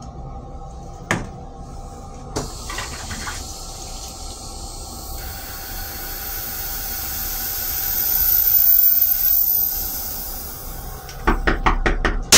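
Metro-North M3 railcar toilet flushing: after a click, a rush of water starts, builds to its loudest several seconds later and eases off. Near the end, a quick run of clacks and one loud clap as the plastic toilet lid is lowered shut.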